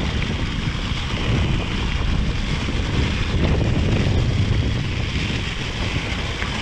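Wind rushing over the action camera's microphone with a steady low rumble as a Cannondale Scalpel mountain bike rolls through forest over wet leaves. Now and then there are small clicks and rattles from the bike.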